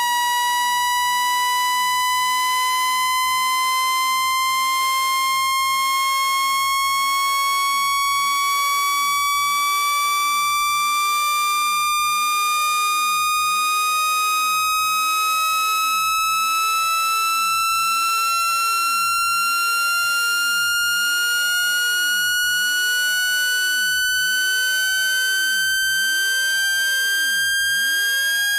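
Loud electronic test tone with a buzzy edge of overtones, sliding slowly and steadily upward in pitch: a speaker-cleaning sweep played at full volume to shake water and dust out of a phone's speaker.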